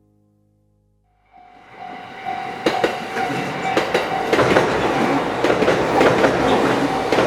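Train running on rails, its wheels clicking over the rail joints, fading in after about a second of near silence; a thin steady squeal sounds over the first few seconds.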